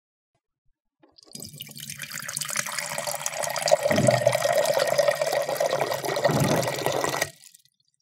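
Water dispenser running a stream of water into a container. It starts about a second in, builds up, has two low gurgles partway through, and cuts off suddenly near the end.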